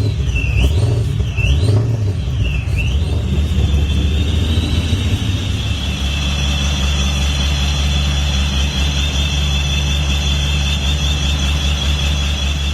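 Supercharged V8 in a Nissan 180SX just after startup, blipped three times in the first few seconds, then settling into a steady idle. The supercharger's blower whine rises and falls with each blip, then holds as a constant high whine over the engine.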